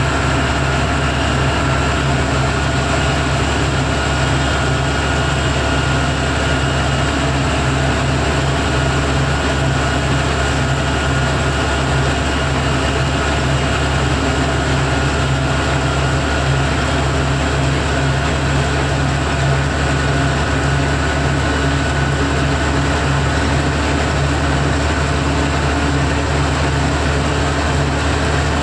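Steady drone of a mobile crane's diesel engine with road noise, heard from inside the cab while it drives along a highway.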